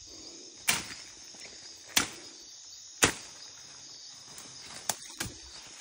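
Machete chopping into a fallen tree trunk: three sharp strikes about a second apart, then two lighter knocks near the end, over a steady trill of insects.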